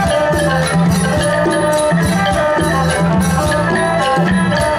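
Isan pong lang folk band playing live, with pitched melody instruments over a steady beat of drums and percussion.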